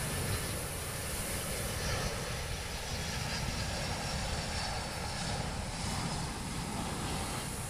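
Twin-engine jet airliner on final approach flying low overhead, its engines a steady noise.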